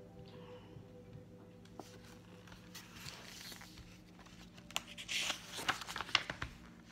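A picture book being handled and set down on a table: a cluster of paper rustles and light knocks in the last couple of seconds, over a faint steady hum.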